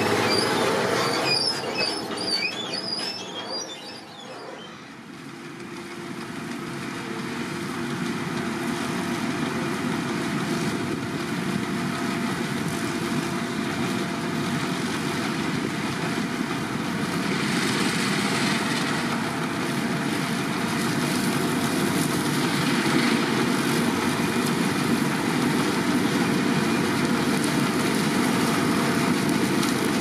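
A tractor with a tipping trailer passing close, with a wavering high squeal, fading out about four seconds in. Then a Grimme Ventor 4150 self-propelled potato harvester running while lifting potatoes, with a tractor and trailer driving alongside; the steady engine and machinery noise grows slowly louder as it approaches.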